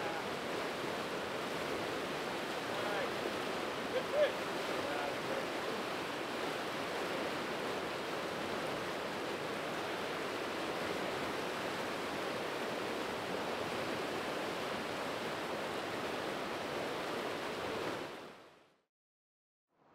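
Metolius River water rushing steadily, an even hiss of flowing water. A brief, louder short sound stands out about four seconds in, and the water sound fades out shortly before the end.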